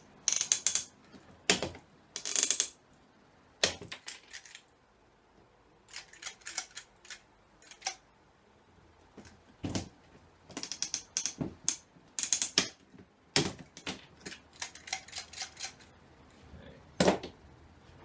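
Hand rivet gun setting pop rivets through a road-case latch: repeated squeezes of the handles make clusters of metallic clicks and short ratchet-like rasps. Several single sharp clicks stand out, the loudest about thirteen and seventeen seconds in.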